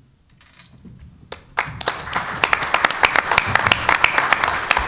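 Audience applause that starts about a second and a half in after a brief hush, swelling quickly into steady, dense clapping.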